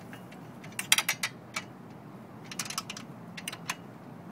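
Wrench and nut driver tightening nuts on bolts through the metal mounting brackets: three short runs of quick metallic clicks.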